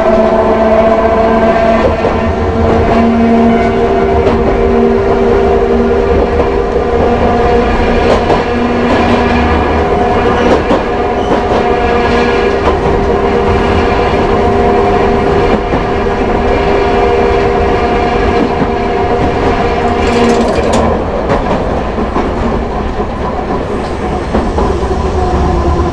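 Hankai Tramway Mo 161 tram running, heard from inside the car: its nose-suspended traction motors and gears give a steady whine under power, over the rumble and clicking of the wheels on the rails. About twenty seconds in the whine stops, with a sharp click, and the tram runs on more quietly.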